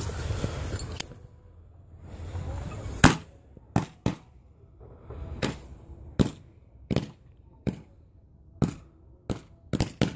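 Small consumer firework going off: a loud hissing spray for about the first second, then a string of about a dozen sharp pops and cracks at uneven intervals of roughly half a second to a second.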